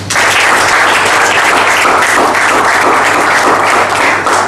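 Audience applauding, a dense burst of clapping that starts abruptly and carries on steadily.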